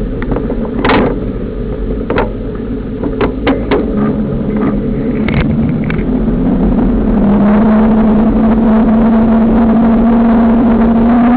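Motorcycle engine running as the bike rides along, with sharp clicks and rattles over the first six seconds. From about seven seconds in, the engine note steadies and rises slowly as the bike accelerates.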